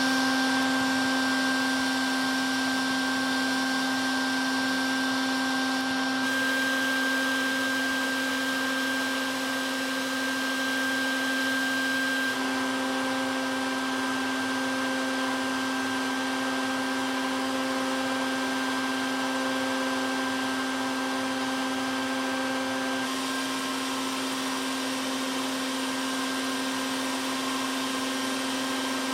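Bee vacuum running steadily, a constant motor hum whose pitch shifts slightly a few times.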